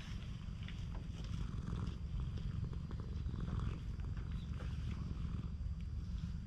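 Domestic cat purring steadily, a continuous low rumble, while its chin and cheek are being scratched. The purr signals contentment.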